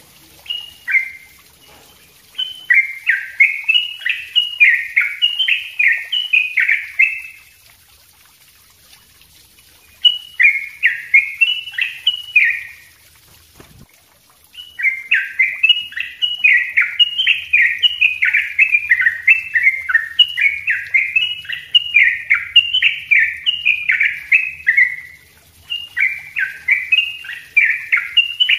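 Caged yellow-vented bulbul (trucuk) singing its rapid, dense rolling song: long runs of quick falling notes, in several phrases with short pauses between them.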